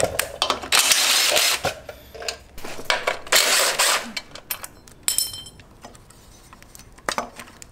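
Cordless DeWalt power driver spinning bolts out in two short runs, the first about a second in and the second around three seconds in. Light clicks and rattles of parts and plastic connectors being handled follow.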